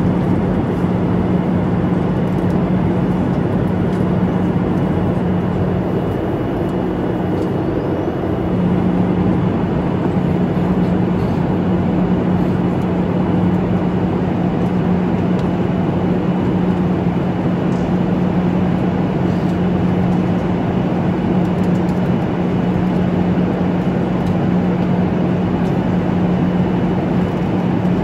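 Cabin noise inside a Boeing 737-800 airliner: a steady rush of air and CFM56 engine noise with a constant low hum.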